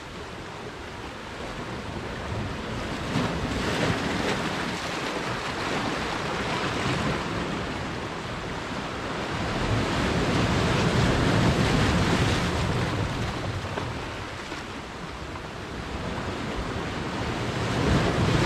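Sea swell washing in on a rocky shore, rising and easing in slow surges, with a heavy swell running.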